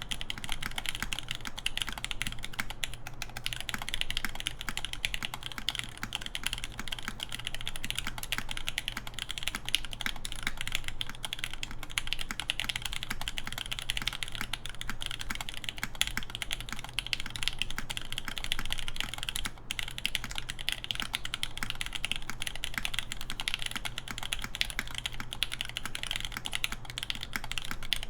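Continuous typing on a mechanical keyboard with lubed vintage Nixdorf Cherry MX Black linear switches, 65 g springs and Cherry G81-3100 keycaps on a full aluminum plate with o-ring mount: a steady, fast run of short key clicks with no pauses.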